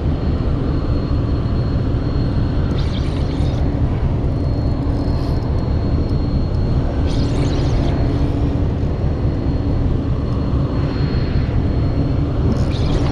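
Steady low engine drone with a constant hum, with three brief higher swishes over it.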